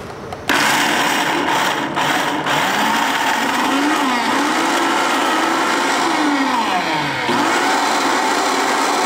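Countertop blender switched on about half a second in, its motor running hard as it grinds a thick load of cooked navy beans into a puree. The motor's whine wanders up and down in pitch as the dense mixture catches on the blades, with a sharp dip about seven seconds in.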